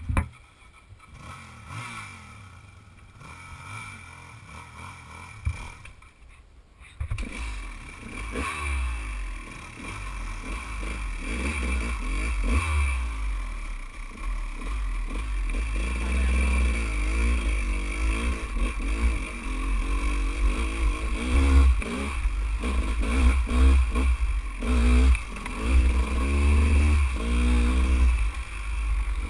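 Dirt bike engine, quiet at first, then revving up and down repeatedly from about seven seconds in as the bike is ridden along a rough trail, with a heavy low rumble throughout.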